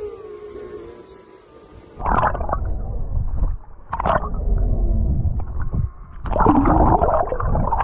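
Muffled water noise picked up by a camera held underwater: a low rumble with gurgling surges, cut off above the middle range. It starts suddenly about two seconds in, after a quieter steady hum, and swells again about four seconds in and near the end.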